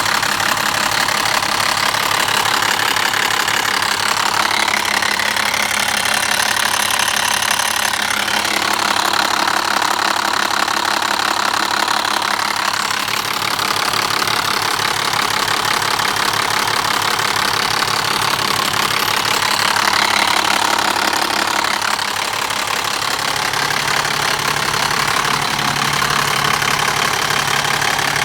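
BMW M57 straight-six diesel engine running steadily, with a dense fast rattle over the engine note that the owner takes for a noisy timing chain.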